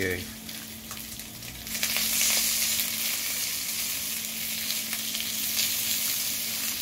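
Salmon pieces sizzling in hot oil in a nonstick wok, louder from about two seconds in, while wooden chopsticks turn the seared pieces.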